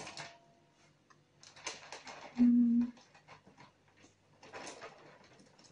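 Short rustles and scrapes of paper packaging being worked with tongs inside a plastic enclosure, three times. About two and a half seconds in there is a brief hummed 'mm', the loudest sound.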